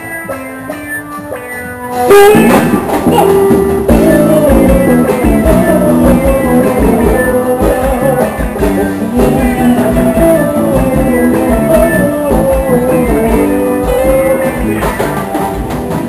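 Dance music track: a light repeating melody, then about two seconds in the full arrangement comes in much louder, with a thumping bass beat under a lead melody.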